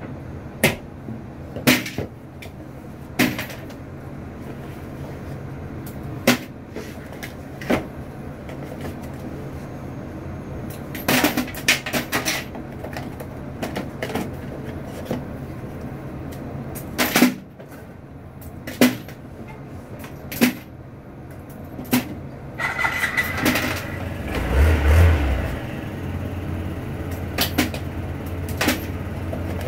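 Rolls of pennies being taken out of cardboard coin boxes and set down, making irregular sharp knocks and clacks over a steady background. About 23 seconds in a rougher, noisier stretch rises and a low steady hum comes in and continues.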